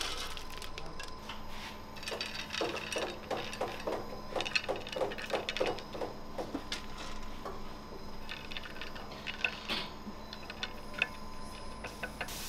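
Shelled pistachio kernels clicking and rattling against metal as handfuls are scooped from a steel pan and scattered onto a round metal künefe tray. There is a quick run of clicks, about three or four a second, in the middle.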